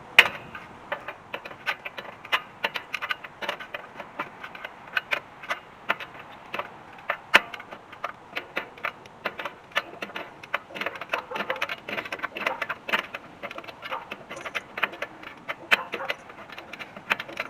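Irregular metallic clicking and clinking, several sharp clicks a second, from hand tools being worked on a truck's drum brake.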